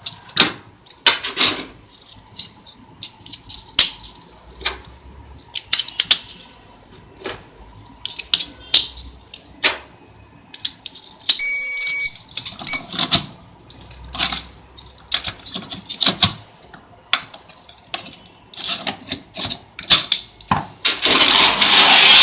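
Plastic clicks and rattles of batteries being fitted into an RFID hotel door lock's battery compartment, and about eleven seconds in a short high electronic beep from the lock as the batteries make contact. Near the end, a scraping rub as the compartment is handled.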